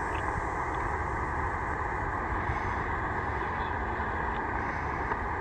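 Tecsun PL-990x shortwave receiver in upper sideband mode, playing a steady band of static hiss through its speaker with a faint steady whistle in it, while it sits tuned to the weather fax frequency between broadcasts.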